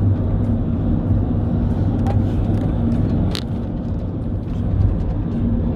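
Steady engine hum and road rumble of a moving motor vehicle, with a brief sharp click about three and a half seconds in.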